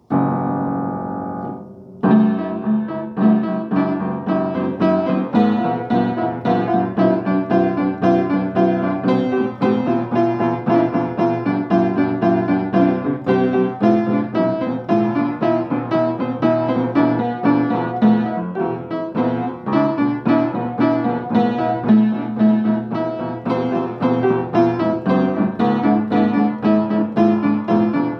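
Piano played by a learner: a chord struck at the start and left to ring out for about two seconds, then a steady stream of repeated notes and chords.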